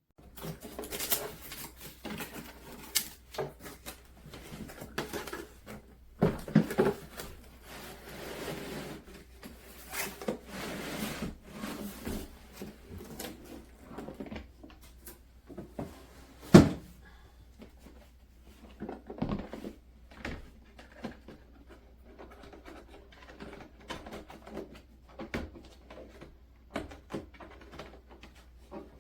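Handling noises: scattered clicks, light knocks and rustling, with one loud sharp knock a little past halfway.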